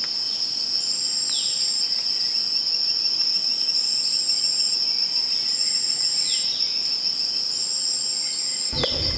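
Insects trilling, crickets by the sound: one high trill held steadily throughout, with a higher trill coming in short repeated spells of under a second each.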